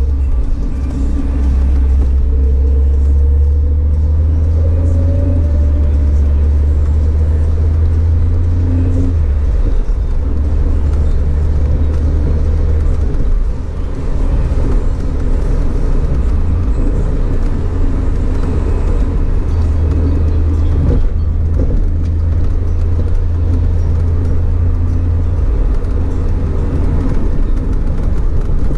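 Audi TT RS's turbocharged five-cylinder engine and its tyres on a wet road, heard from inside the car while driving: a steady low drone whose pitch and level shift several times with throttle and gears, over a hiss of tyre and road noise.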